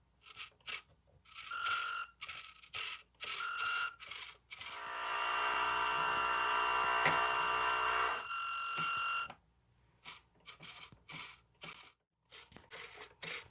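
Small brushed electric motor of an RC model boat spinning its propeller out of the water: a steady buzzing whine for about four seconds in the middle, with a few short high beeps before and after it.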